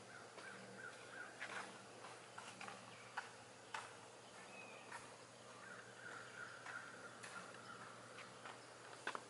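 Faint outdoor ambience: a distant animal call drifting in and out, a few short sharp clicks, and a low steady hum underneath.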